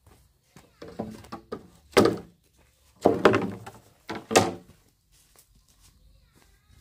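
A few heavy thunks, struck one to two seconds apart, each with a short ringing tail.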